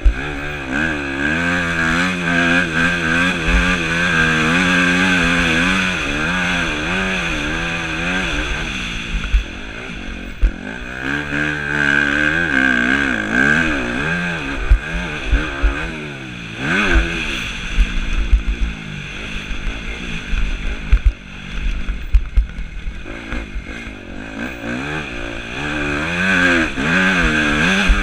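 Yamaha YZ250F four-stroke single-cylinder motocross engine under hard riding, its revs rising and falling over and over through throttle and gear changes, with brief drops in revs around a third and a half of the way through.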